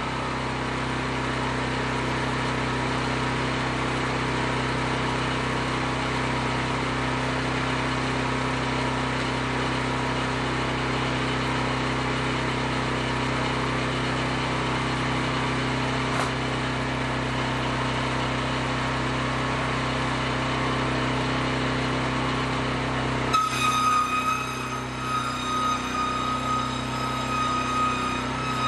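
Wood-Mizer portable bandsaw mill's engine running steadily, a constant drone with a steady whine over it. About 23 seconds in the sound changes: a higher whine comes up and the level turns uneven.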